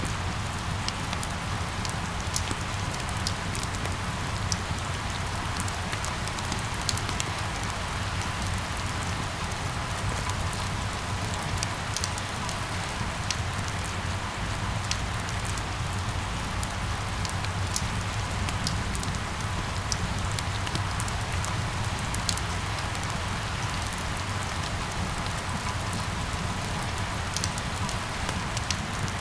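Steady rain falling, with many small drops pattering and ticking over a constant low rumble.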